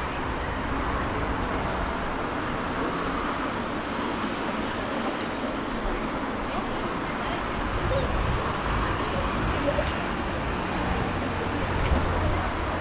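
Steady street background noise: road traffic going by, heard as an even hiss over a low, uneven rumble, with a single faint click near the end.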